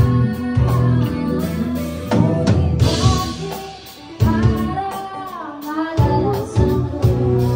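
Live pop band playing: a woman singing over drum kit, bass guitar and electric guitar, heard through the room's PA. The band dips briefly a little past halfway, then comes back in sharply.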